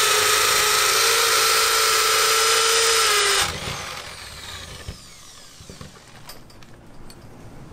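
Corded hammer drill boring up through wooden floor framing, running at a steady high speed, then switched off about three and a half seconds in and winding down. A few light knocks follow.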